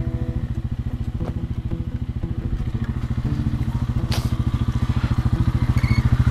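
ATV engine running at low speed, a steady rapid pulsing that grows a little louder towards the end, with a sharp click about four seconds in.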